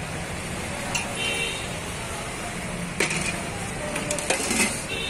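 A steel serving ladle clinking and scraping against a steel pot as curry is dished out, with a few sharp clinks about three and four seconds in. Behind it runs steady outdoor background noise with faint voices.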